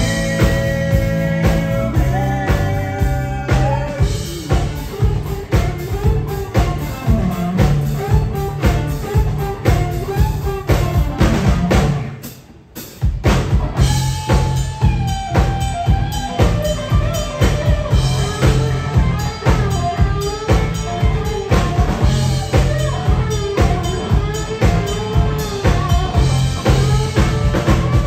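Live country-rock band playing: acoustic and electric guitars, fiddle, bass and a drum kit driving a steady beat. About twelve seconds in the whole band stops dead for about a second, then comes back in together.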